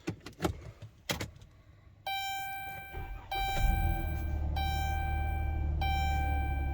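Keys clicking and jangling, then about two seconds in the minivan's warning chime starts dinging about every second and a quarter; a second or so later the engine starts and runs at a steady idle under the chime. It is a test start on a newly programmed key.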